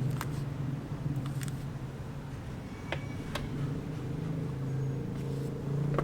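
A steady low mechanical hum with a few sharp, scattered knocks or clicks.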